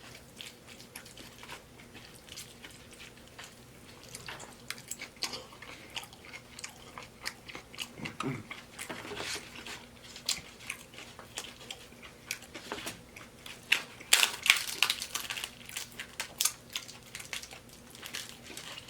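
Close-miked chewing and biting into taco salad: a steady run of short wet mouth clicks and smacks, busiest and loudest around three-quarters of the way through.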